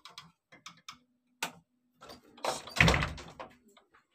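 Wooden door being handled and shut: light clicks and knocks, a sharp knock about a second and a half in, then a heavy thud near three seconds in, the loudest sound.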